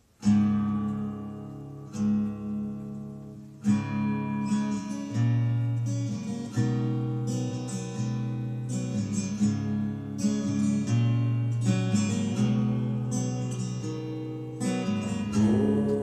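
Acoustic guitar strummed: a loud chord rings out suddenly out of near silence right at the start, then steady strumming through a series of changing chords.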